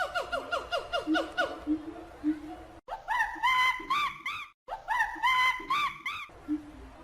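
Animal calls: rapid, laugh-like series of short repeated pitched calls, broken by two brief gaps.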